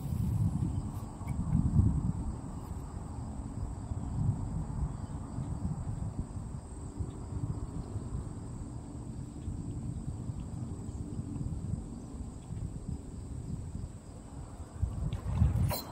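Outdoor ambience with a steady low rumble, such as wind on the microphone or moving water, and a faint steady high-pitched drone over it. A brief sharp click comes near the end.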